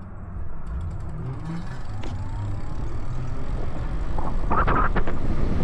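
Wind noise on the microphone of a camera riding on a moving e-bike, over low road rumble; the wind grows louder and gustier about four seconds in.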